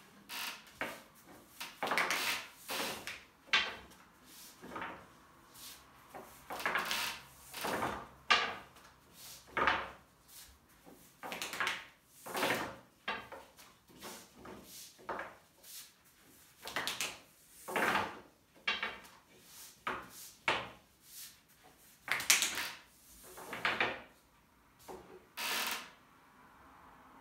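Long thin wooden rolling pin (oklava) rolling yufka dough back and forth on a glass tabletop: repeated rubbing rolling strokes, roughly one or two a second, some with a sharp tap of wood on glass. The strokes thin out near the end.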